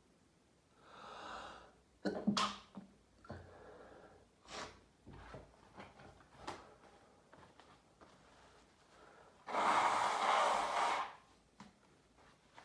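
A man in the middle of a sneezing fit that follows a shower: a breathy in-breath about a second in, a sharp sneeze just after it, a run of short sniffles, then a longer, louder rush of breath lasting over a second near the end.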